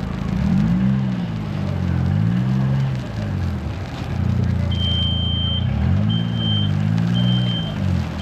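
A large vehicle's engine, close by, its pitch rising and falling again and again as it revs. From about halfway a high-pitched warning beep sounds about once a second, like a truck's reversing alarm.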